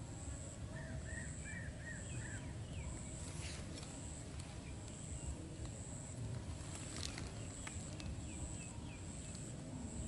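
Rural outdoor ambience: an insect's high pulsing buzz repeating about one and a half times a second, with a bird giving a quick run of five chirps about a second in. A few faint clicks come from the bamboo trap sticks and string being handled.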